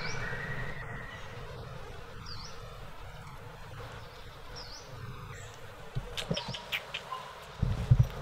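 Outdoor ambience with a bird repeating a short high chirp about every two seconds. A thin rising whimper from a baby macaque sounds in the first second, and a burst of rustling and knocks comes near the end as the mother gets up and walks off.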